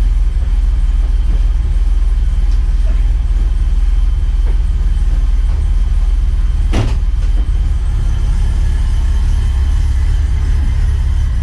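Car engine running steadily with a deep low rumble, and a few sharp clicks over it, the loudest about two-thirds of the way through.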